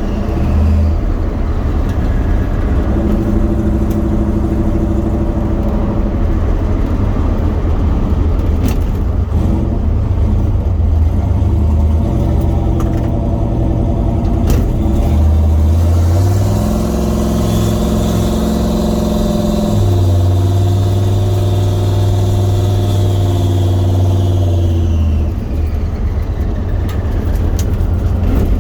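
Turbocharged truck engine with a Garrett G42-1200 turbo, driving under way. Its note holds steady and then shifts in steps, with a faint high turbo whistle rising and falling along with it.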